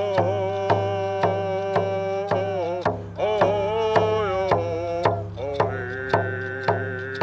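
Coast Salish hand-drum song: a steady, even drum beat about twice a second under a sung melody with long, wavering held notes.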